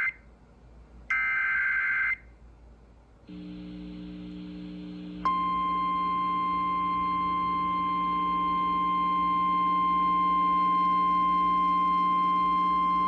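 Emergency alert SAME header: a one-second burst of warbling digital data tones about a second in, then a low steady hum from about three seconds in. From about five seconds in, the single steady National Weather Service attention tone sounds continuously, announcing a new severe thunderstorm warning.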